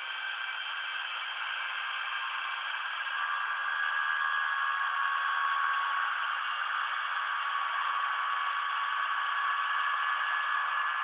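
Homemade CNC machine running its program and machining black plastic: a steady mechanical whine with several held tones over a rattling noise, which gets a little louder about three to four seconds in.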